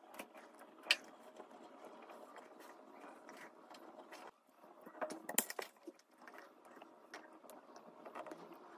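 Faint scratching and small clicks from hand crafting work: a pencil tracing around a plastic tube on a black sheet, then scissors cutting the sheet. A cluster of louder clicks comes about five seconds in.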